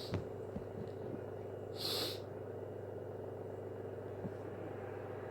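A person with hay fever takes one short, hissing breath about two seconds in. A soft knock comes just after the start, over a steady low hum.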